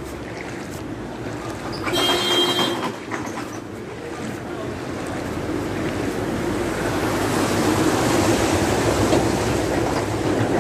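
Floodwater churning and splashing around a vehicle wading through a flooded street, growing louder in the second half. A brief, sharper burst of sound about two seconds in.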